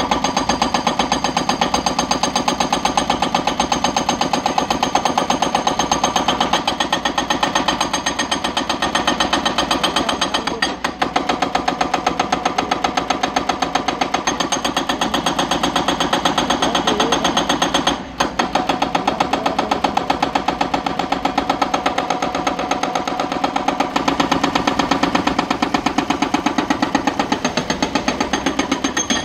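Hydraulic rock breaker on a Hyundai crawler excavator hammering an overhanging rock face, a rapid, steady stream of blows. It stops briefly twice, about eleven and eighteen seconds in.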